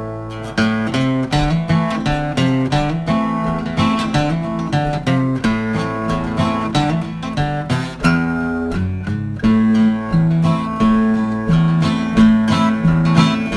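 Acoustic guitar playing the instrumental intro of a country-folk song, a steady run of picked notes and strummed chords.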